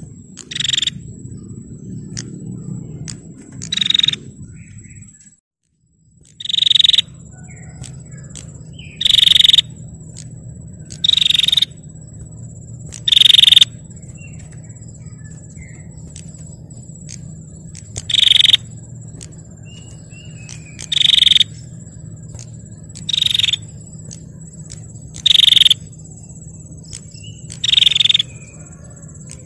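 Female prinia (prenjak) calling in short, loud bursts, about eleven in all, one every two to three seconds, over a steady low hum and a thin high steady whine.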